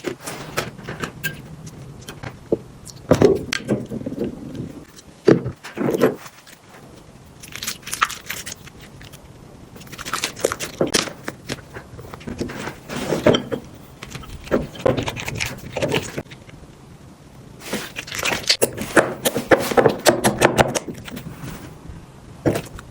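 Glue slime being mixed and handled, with sticky crackling and squishing coming in bursts of a second or two, over and over.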